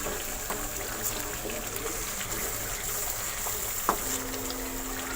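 Onion-tomato masala frying in oil in a pot, a soft bubbling sizzle as it nears the point of releasing its oil. A single sharp knock about four seconds in, then a low steady tone comes in.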